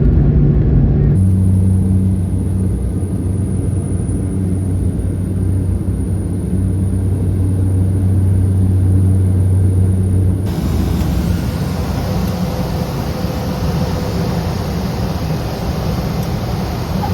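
Cessna 208B Grand Caravan's single turboprop engine and propeller running with a steady low drone. The sound changes abruptly about a second in and again about ten seconds in, as the recording cuts between clips.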